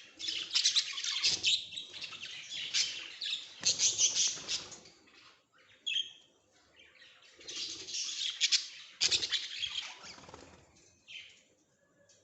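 A group of ringneck parakeets (rose-ringed parakeets) screeching and chattering in two dense bouts, with wing flapping and a single short squawk between them.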